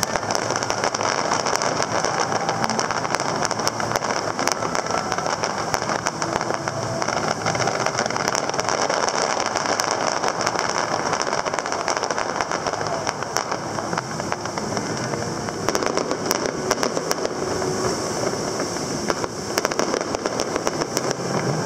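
Fireworks display going off: a dense, continuous crackle and popping of bursting shells, with louder reports among them.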